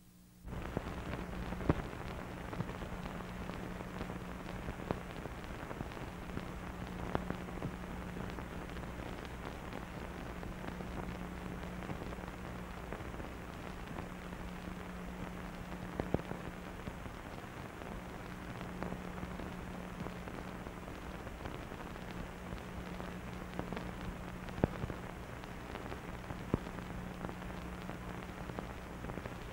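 Surface noise of an old film soundtrack: a steady hiss with a low hum and scattered clicks and pops. It starts about half a second in, and no music or voice plays over it.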